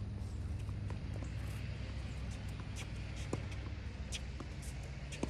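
Doubles tennis rally on a hard court: scattered short pops of the ball off rackets and the court, with a sharper hit near the end, over a steady low rumble.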